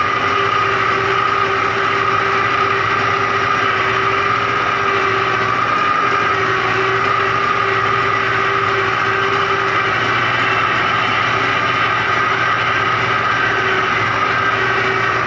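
Diesel engine of a 640 tractor running steadily at about 1800 rpm under load, powering a rotavator that tills the soil, heard close up from the driver's seat. It is a constant, unchanging engine note with a steady high whine over it.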